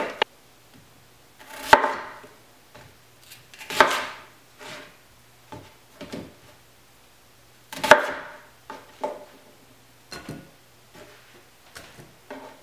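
Chef's knife cutting a peeled white onion into quarters on a plastic cutting board: three loud crunching cuts that knock on the board, about 2, 4 and 8 seconds in, with quieter taps and scrapes of the knife and onion pieces between.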